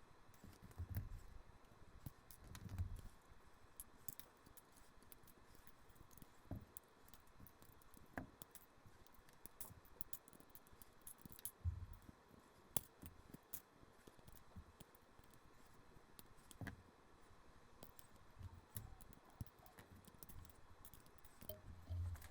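Plastic LEGO pieces clicking and clattering as a small model is pulled apart by hand: scattered sharp clicks with a few soft low thumps.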